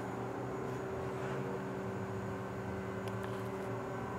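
A steady machine hum with a few fixed tones over a low noise.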